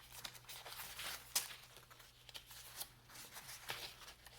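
Faint rustling and crinkling of paper as a handmade journal's pages and paper pieces are handled and turned, with a sharper click about a second and a half in.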